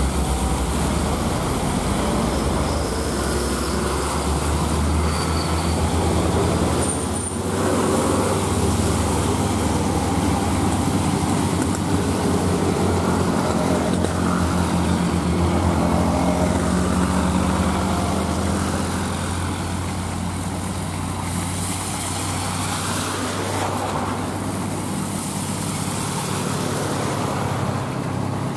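Heavy container truck's diesel engine running steadily at low speed as it labours up a steep incline, with a steady low hum. Wet-road traffic hiss, with two louder spells of high hiss in the second half.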